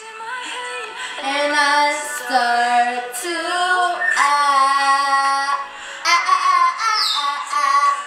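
A song playing: a high sung vocal melody of held notes that step up and down in pitch.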